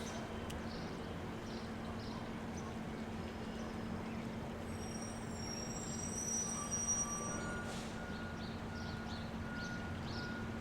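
Steady background rumble with a constant low hum, and faint high chirps and thin whistle-like tones around the middle.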